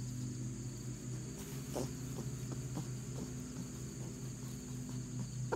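Outdoor field ambience: a steady high-pitched chirring of insects, typical of crickets, over a steady low hum, with faint scattered ticks.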